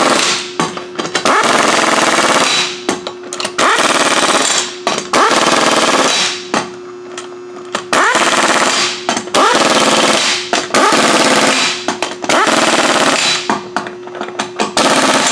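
Pneumatic impact wrench hammering wheel lug nuts tight through a 7/8-inch, 140 ft-lb torque stick. It comes in runs of about a second, one after another, about nine in all, as it moves from nut to nut. The stick holds each nut to about 140 ft-lb.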